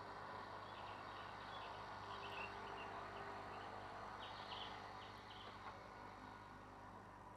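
Faint chirping in the background, short scattered calls coming and going for the first five seconds or so, over a low steady hum.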